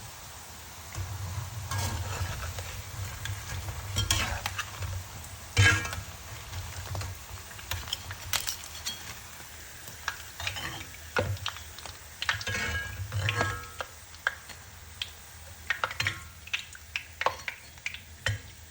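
Mysore bondas, balls of curd-and-flour batter, sizzling as they deep-fry in hot oil while a spoon stirs them, scraping and clinking irregularly against the pan. They are almost done, nearly golden brown.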